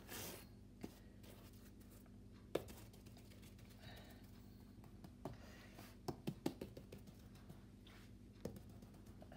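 Faint clicks and light rustling of cards being handled and pulled from a deck, with a quick run of small taps about six seconds in.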